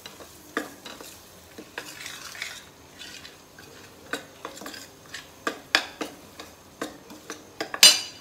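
Steel spoon scraping and clinking irregularly against a stainless steel kadhai while stirring wheat flour roasting in ghee. A louder clank comes near the end.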